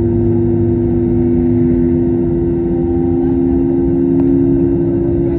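Airbus A321neo's jet engines heard inside the cabin: a steady drone with two strong tones, the lower one slowly rising in pitch, over a low rumble, and a faint click about four seconds in.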